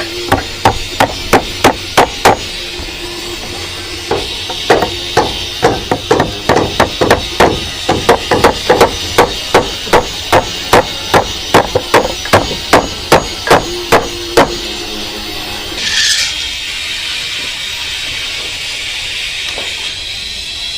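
Hammer striking nails into wooden formwork, steady blows about three a second with a short pause about two seconds in; the hammering stops about fourteen seconds in.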